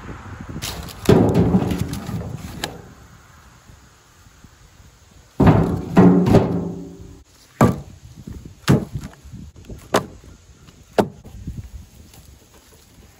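Split firewood dropped into an empty plastic wheelbarrow tub: hollow, ringing thunks as the first pieces land on the bare tub in two clusters, then four single sharper wood-on-wood knocks, about a second apart, as more pieces land on the growing load.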